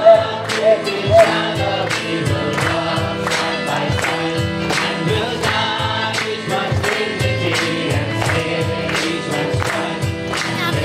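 Christian worship music: voices singing over instruments with a steady percussive beat.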